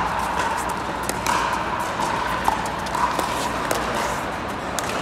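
Pickleball rally: a series of sharp pops as paddles strike the plastic ball, irregularly spaced over the few seconds.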